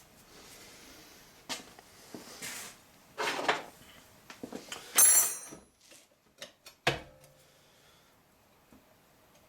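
Intermittent workshop handling noise: scrapes and knocks of tools and metal being moved about, with a harsh scrape about five seconds in and a sharp knock that rings briefly about two seconds later.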